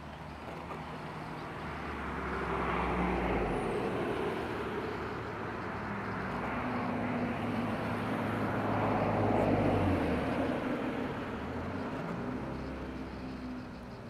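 Motor vehicles passing: a steady engine hum under a rising and fading rush of noise, swelling twice, loudest about three seconds and nine seconds in.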